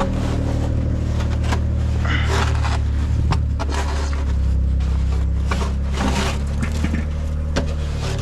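A machine engine running steadily with a low drone, with scattered knocks, clatter and scraping of building work over it.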